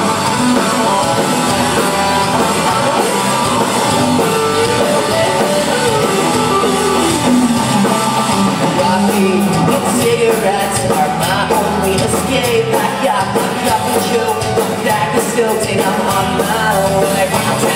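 Live rock band playing a song at a sound check: guitar with a male singing voice.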